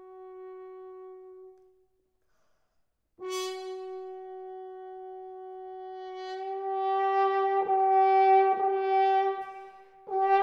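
French horn sustaining one long note, which fades out about a second and a half in. After a silence of about a second and a half, the same note starts again and swells, growing louder and rougher, then drops away just before the end.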